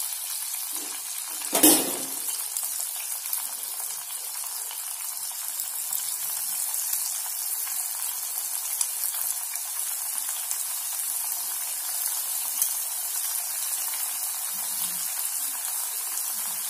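Batter-coated brinjal slices deep-frying in hot oil in a stainless steel pan: a steady sizzling hiss as more slices are dropped in. A sharp knock about a second and a half in.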